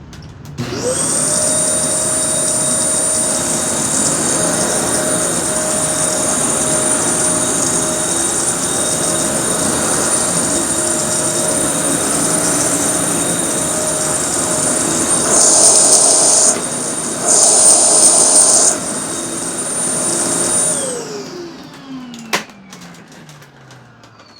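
Kenmore Elite upright vacuum cleaner switched on, its motor spinning up and running steadily with a high whine and a screechiness that doesn't sound completely healthy, which the owner thinks means the motor might need a little help. Twice, about two-thirds through, it briefly gets louder; near the end it is switched off and the motor winds down with a falling pitch, followed by a single click.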